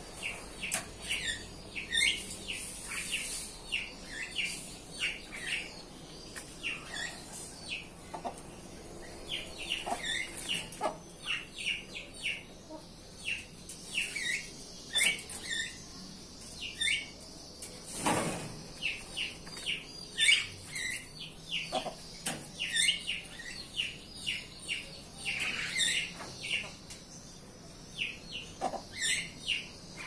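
Birds in an aviary chattering busily: short, quick chirps, several a second, with one louder, fuller sound about eighteen seconds in.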